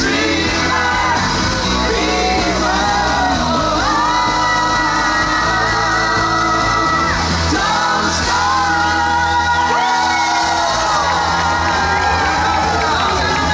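Live band playing a pop song, with a lead vocal holding long notes over a steady bass line, and scattered yells and whoops from the crowd.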